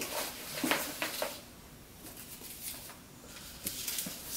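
Hands rummaging in a cardboard box: rustling and scraping with a few light knocks, in short spells at the start, around a second in and near the end, with a quieter stretch between.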